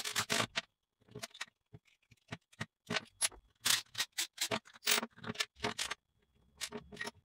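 A quick, irregular run of short clicks and clacks: the plastic housing, screws and metal parts of a HiKOKI 36V cordless impact wrench being handled and taken apart on a bench.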